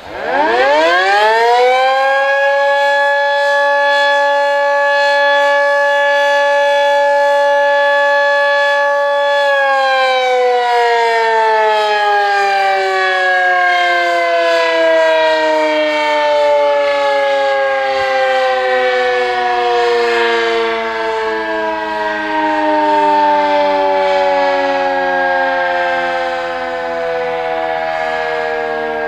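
Red Arrow Model 30 siren winding up quickly to a steady, loud chord of several tones at once. It holds the chord for about eight seconds, then winds down slowly over the next twenty seconds, still sounding as the pitch falls.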